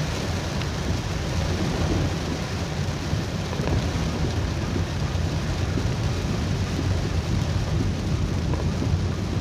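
Heavy rain falling on a moving car, heard from inside, over a steady low rumble of the car on the road.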